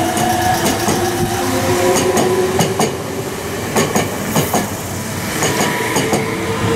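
Meitetsu red electric commuter train, a coupled 3500 series and 3100 series set, running past: wheels clacking over rail joints under a steady electric motor whine.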